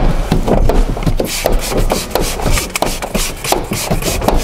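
A hard plastic card scraping and rubbing over a car's rear window glass in many quick, uneven strokes.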